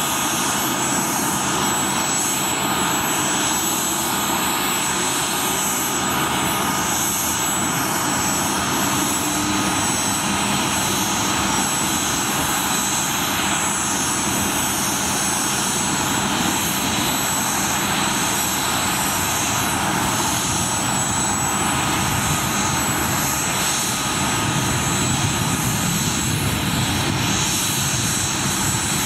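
Boeing CH-47 Chinook helicopter running on the ground, its twin turboshaft engines giving a steady high whine with several held tones over the rush of its turning rotors.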